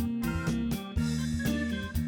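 Upbeat background music with a steady beat, keyboard notes over a bass line.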